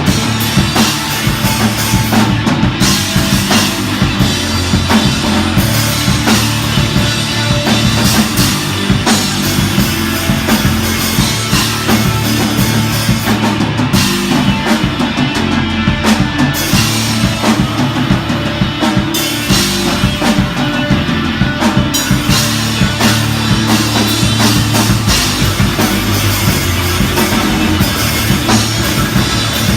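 A rock band playing loud and live, with the drum kit to the fore over bass and guitar, and no singing.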